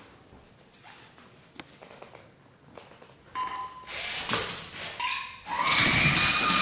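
R2-D2 robot beeping: a short beep about three seconds in, another near five seconds, then a rising whistle. The whistle comes with a loud burst of scrabbling as the Labrador bolts across the wooden floor.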